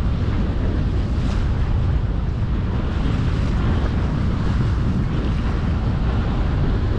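Steady wind buffeting the microphone, over the wash of choppy sea water.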